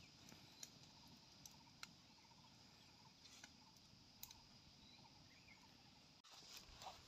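Near silence: a wood campfire crackling faintly, a few sparse clicks, over a faint steady high hiss.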